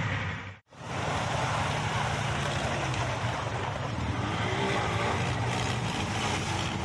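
Quad bike engines running as an ATV drives through a muddy water crossing, with water splashing. The sound cuts out for a split second just under a second in, then the steady engine noise goes on.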